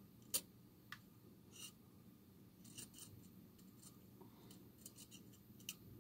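Near silence with about a dozen faint, sharp clicks and ticks of small repair tools on a phone, the loudest about half a second in.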